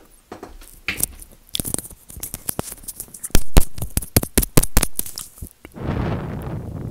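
Close-miked ASMR triggers: a small white object handled at the lips gives a quick run of sharp clicks and crackles, then about five and a half seconds in gives way to a steady breathy rush of air blown at it right against the mic.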